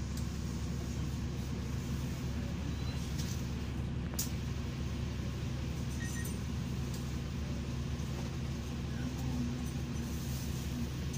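City bus engine idling at a stop, a steady low hum heard from inside the cabin, with one sharp click about four seconds in.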